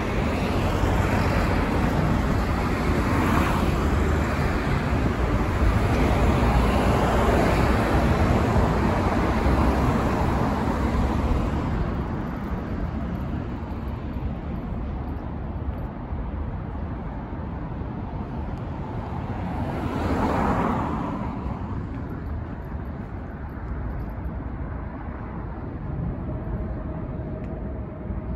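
Steady city road traffic noise, with one vehicle passing more loudly about twenty seconds in.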